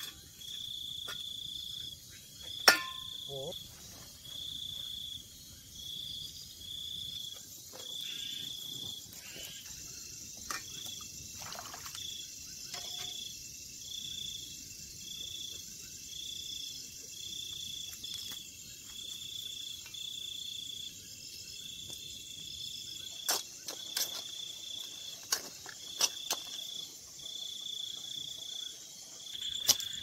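A night insect chirping in short, even pulses of one high note, about one a second, over a fainter high hiss of other insects. A single sharp knock comes about three seconds in, and a few light clicks near the end.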